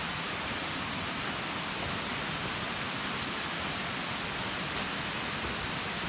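Waterfall rushing: a steady, even hiss of falling water, with a thin, steady high tone above it.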